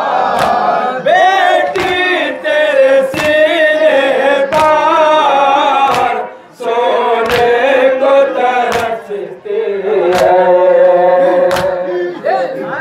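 Male noha reciter chanting a mourning lament into a microphone, with men's voices joining in. Sharp slaps of chest-beating (matam) keep time about every second and a half, with a brief pause about six and a half seconds in.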